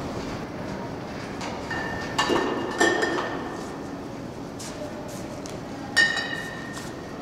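Glass clinking: three sharp clinks, each with a short ringing tone, about two seconds in, a moment later, and about six seconds in, over a steady background rumble.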